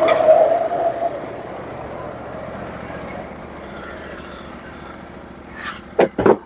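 Norwood HD36v2 portable band sawmill running during a cut, its sound slowly easing off. A few sharp knocks come near the end.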